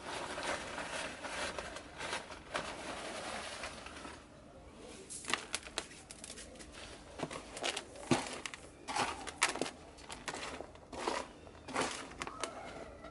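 Handfuls of grit and compost being stirred together in a plastic tray, the gravel crunching and scraping against the plastic. A steady rustle for the first few seconds gives way to short, irregular scrapes.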